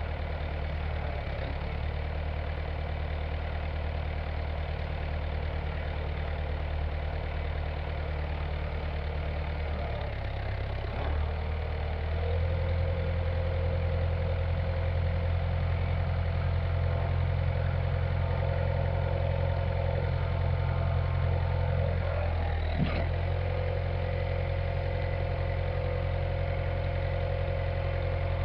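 Early-1970s John Deere backhoe's engine idling steadily. About twelve seconds in it speeds up a little and runs louder. A single sharp knock comes about two-thirds of the way through.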